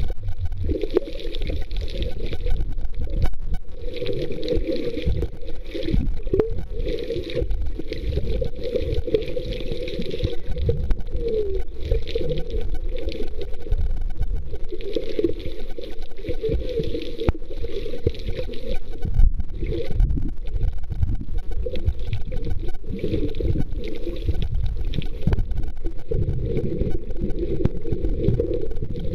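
Water noise from a camera held under water while snorkeling: a steady, muffled sloshing and gurgling.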